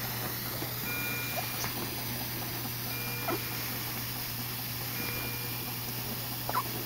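Neonatal-unit medical equipment: a steady low hum under a short electronic beep that repeats about every two seconds, with a few faint brief squeaks in between.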